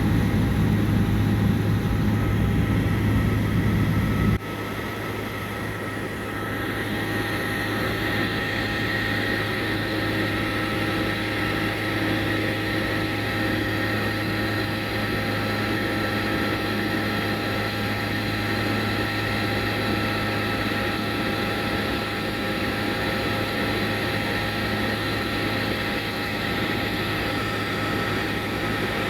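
Small propeller airplane's engine and propeller drone heard from inside the cabin in flight: a steady, even hum with several held tones. The low rumble drops abruptly about four seconds in, and the drone then runs on steadily.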